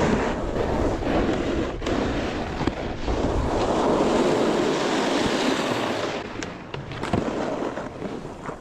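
Snowboard sliding and scraping over snow while riding, with wind buffeting the camera microphone. The scrape is loudest about halfway through and eases off near the end.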